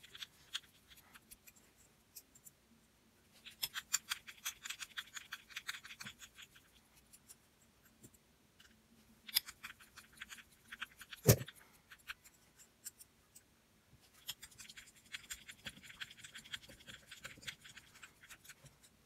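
Hex driver backing small screws out of an RC car's gear differential case: three stretches of fine, rapid ticking and scraping as the screws turn, with one sharp click about halfway through.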